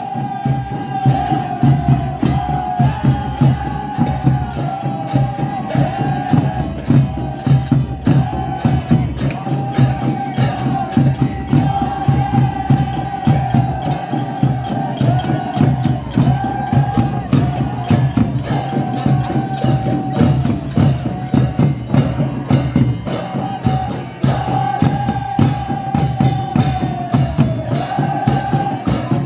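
Music: a fast, steady beat of hand percussion under a low drone and a held melody line whose notes bend down at their ends.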